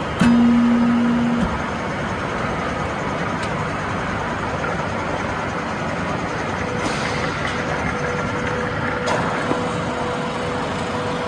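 Steady factory machinery noise, with a loud low hum that sounds for about a second near the start and cuts off suddenly.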